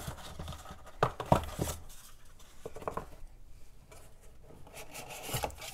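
Product packaging pieces being handled and shifted by hand: rustling, with a cluster of sharp taps and clicks about a second in and another rustle near the end.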